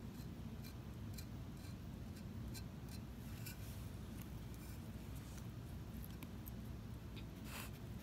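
Faint small ticks and scratches from the applicator tip of a squeeze-bottle underglaze liner working on a bisque ceramic mug and from handling the mug, over a steady low room hum. A short scraping rustle comes near the end.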